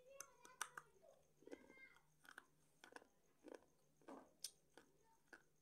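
A slate pencil bitten off between the teeth with a few sharp snaps, then chewed with a run of quiet, crisp crunches, roughly one or two a second.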